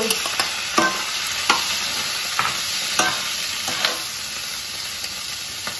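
Chopped tomatoes and onions sizzling in ghee in a nonstick kadai, with a metal spoon repeatedly scraping and tapping against the pan as they are stirred.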